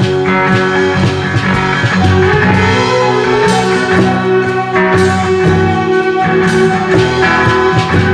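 Instrumental passage of a lo-fi acoustic rock song with guitar to the fore, recorded on a four-track cassette.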